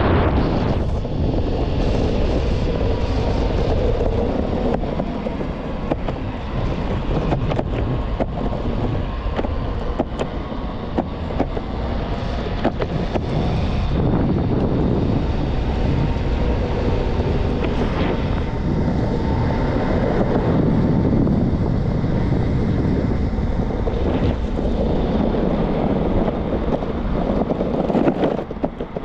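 Wind buffeting the microphone over a steady road rumble from an electric skateboard rolling on pavement, with many short sharp ticks.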